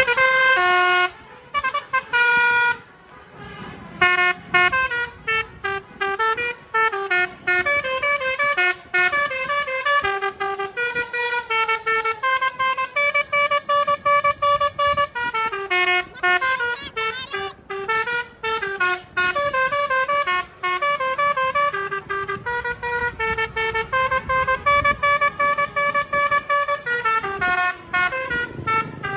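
Telolet basuri bus horn playing a melody of quick stepped notes, several notes a second, with short breaks between phrases and a longer pause a few seconds in.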